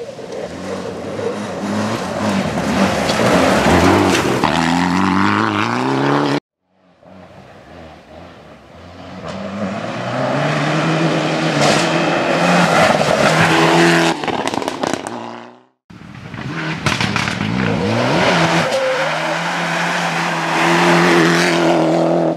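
Mitsubishi Lancer Evo X rally car's turbocharged four-cylinder engine at full effort, its pitch climbing and dropping again and again through gear changes. The sound cuts off abruptly twice and picks up again each time.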